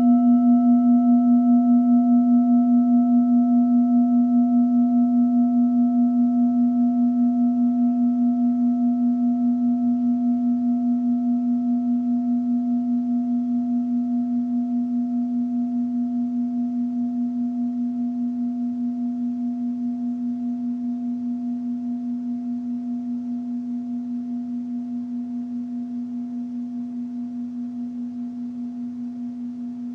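A singing bowl ringing on after a single strike: one low steady tone with fainter higher overtones, slowly fading, its loudness wavering in a gentle, even pulse.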